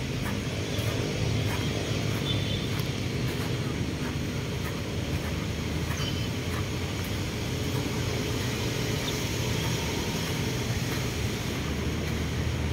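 Steady low outdoor rumble, with no clear rhythm or tone and a few faint ticks over it.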